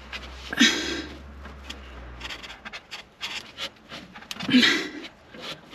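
Scratching and rubbing of a hand working a flexible propane hose fitting under a van, broken by two loud panting breaths of effort, about half a second in and near the end.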